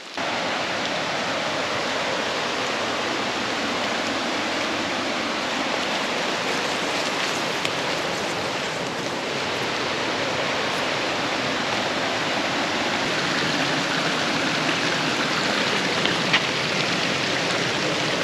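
Small forest waterfall, its water pouring and splashing in a steady, unbroken rush.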